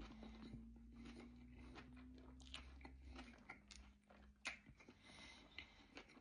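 Faint close-up chewing of a burger, with a few sharp mouth clicks and smacks that come more sharply in the second half. A low steady hum sits under the first half.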